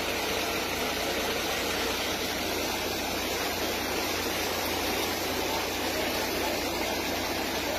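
Fast floodwater rushing down a flooded street, a steady unbroken wash of water noise.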